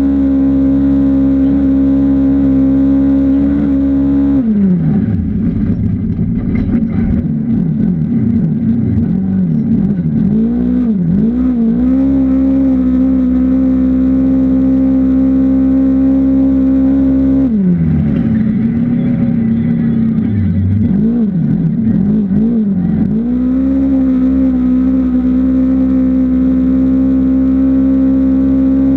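An off-road racing vehicle's engine runs hard at one steady high pitch. Twice the pitch drops away, rises and falls through several quick revs, then climbs back and holds steady again.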